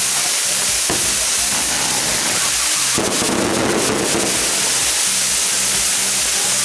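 Maltese mechanical fireworks spinning, their many burning fire jets giving a loud steady hiss. About three seconds in a denser rushing burst lasts about a second. A regular low pulsing runs underneath.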